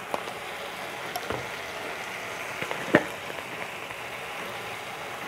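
Thick tomato-cashew masala gravy with cucumber pieces simmering in ghee in a kadhai over a low gas flame: a steady sizzle with a few sharp pops, the loudest about three seconds in.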